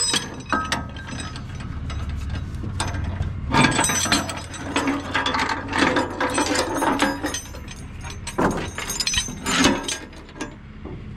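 Steel tie-down chain rattling and clinking as it is pulled by hand and hooked, with quick ratcheting clicks from the chain hardware. It grows quieter near the end.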